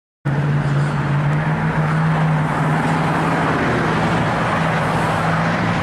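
A car engine running steadily with a low, even hum, cutting in abruptly at the start.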